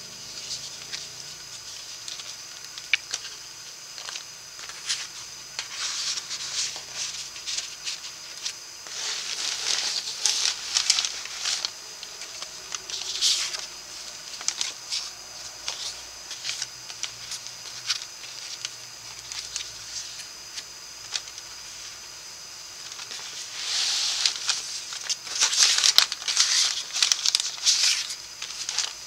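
Paper and cardstock rustling and sliding as the pages of a handmade scrapbook folio are handled and a card is pulled out. It comes in irregular bursts with quieter gaps, busiest near the end.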